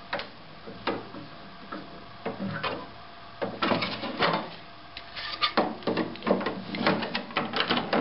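Hands working the plastic rear cover moulding of an HP DesignJet 800 plotter back into place. Scattered clicks and knocks come first, then a busier run of plastic clattering and rubbing from about three and a half seconds in.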